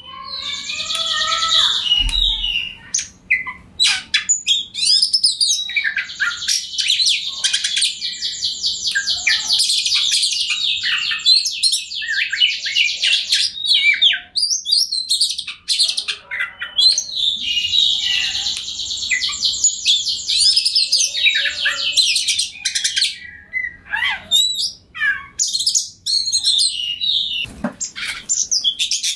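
Oriental magpie-robin singing loudly: a varied song of rapid trills and fast repeated notes, given in long unbroken runs with short phrases and brief pauses between them.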